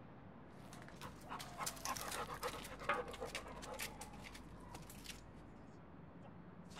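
A dog panting hard in a quick, irregular run of sharp breaths lasting about four and a half seconds.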